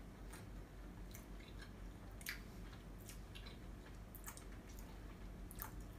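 Faint close-up chewing of a nut-topped doughnut: soft, wet mouth sounds with scattered small clicks.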